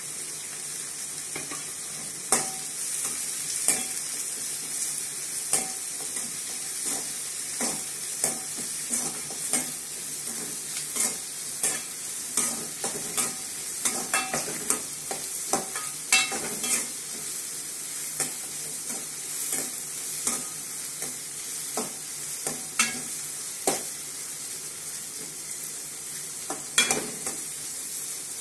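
Whole shallots and curry leaves sizzling in a metal kadai, with a steel ladle stirring and scraping against the pan in irregular clinks, roughly one or two a second.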